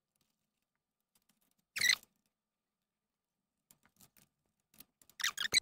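Handling noise as parts and wires of an EcoFlow River power station are fitted back together: one short clatter about two seconds in, a few faint clicks, then a quick run of sharp clicks near the end.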